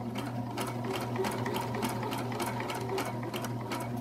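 Electric sewing machine running steadily, stitching through coiled cotton clothesline rope: a steady motor hum with rapid, even clicking of the needle strokes.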